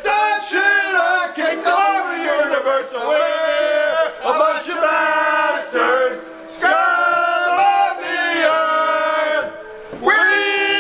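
Group of men chanting together in loud unison, holding drawn-out notes that bend in pitch, with short breaks between lines.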